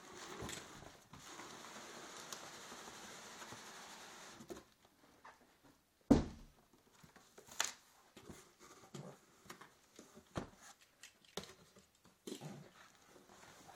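Cardboard box being handled and opened: several seconds of steady scraping as the box is worked with a box cutter, then one heavy thump about six seconds in as the box is set down on the carpet. After that come scattered knocks and rustles of the cardboard flaps being pulled open.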